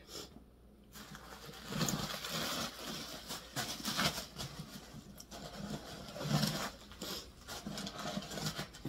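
Leather handbag and its dust bag being handled close to the microphone: irregular rustling and brushing with soft bumps.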